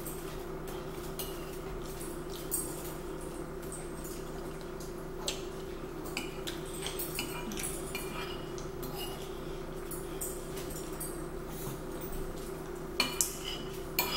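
Metal spoon clinking and scraping against a ceramic bowl of spaghetti, with short clicks scattered throughout and a quick cluster near the end, over a steady low hum.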